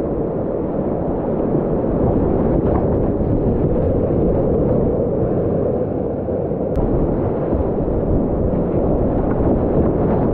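Whitewater rapids rushing and splashing around a kayak, close up and steady, with the sound dull and low-pitched.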